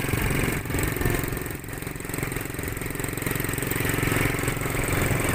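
ATV engine running as the quad bike is ridden, its level dipping briefly about a second and a half in before picking up again.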